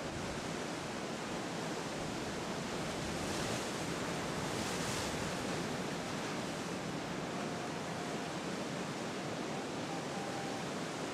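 Steady wash of ocean surf breaking and running in, swelling briefly about four seconds in.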